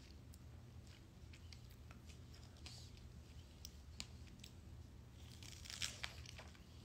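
Faint scattered clicks, then about five and a half seconds in a brief, louder burst of wet biting sounds as a person bites into a fresh strawberry.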